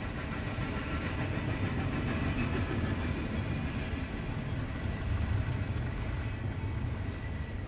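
Freight train of double-stack container well cars rolling past: a steady rumble of steel wheels on the rails, easing slightly near the end.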